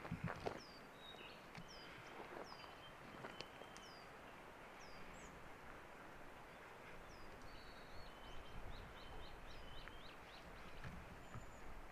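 Wild birds calling in a forest: short high notes that slide downward, repeated every half second or so, with a quick run of short notes about eight seconds in. A few soft footsteps on the trail near the start.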